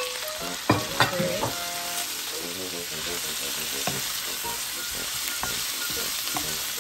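Pork and sliced bitter melon stir-frying in a frying pan: a steady sizzle, with a few sharp knocks in the first second or so as the cover comes off and a wooden spoon starts stirring.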